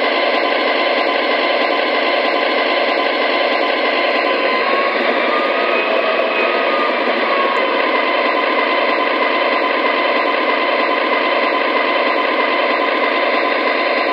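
O-gauge model of a GE ES44AC locomotive playing its onboard diesel engine sound while it runs on the track: a steady, dense engine drone with no deep bass. A faint high tick repeats about every two thirds of a second, dropping out for a few seconds in the middle.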